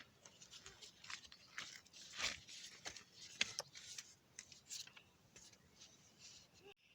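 Faint, irregular clicks and crunching scrapes, a few each second, like close handling of objects.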